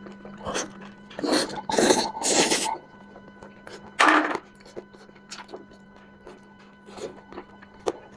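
Close-up eating sounds of someone chewing hand-grabbed mutton: small wet clicks and smacks, with a few louder noisy bursts just over a second in and again at about four seconds. Faint background music plays underneath.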